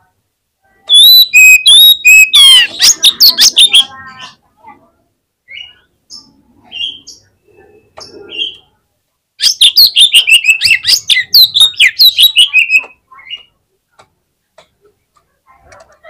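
Male Oriental magpie-robin singing its combative 'fighter' song: two loud bursts of rapid, gliding whistles and fast trills, about a second in and again from about nine seconds, with scattered short calls between. It is the kind of song bird-keepers play to make rival magpie-robins fire up and answer.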